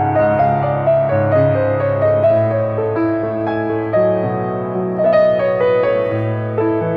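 Background piano music: a gentle melody of single notes moving step by step over held lower notes.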